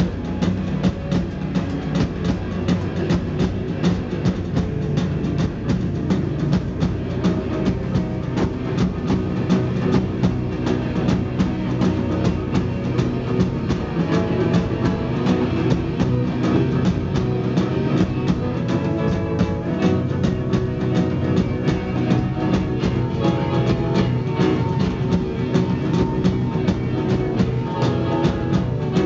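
Live rock band playing: a drum kit keeps a steady beat under electric guitar and bass guitar.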